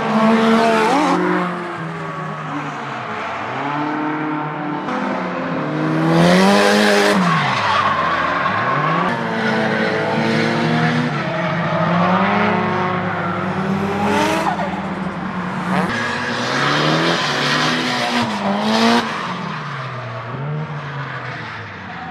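Nissan Silvia S14 drift car's engine revving up and falling back again and again as it slides through corners, with bursts of tyre skid noise, loudest about six seconds in.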